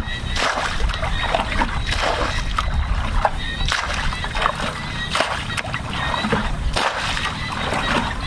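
Shallow, muddy paddy water splashing and sloshing in irregular bursts as hands and legs work through it, feeling for fish by hand.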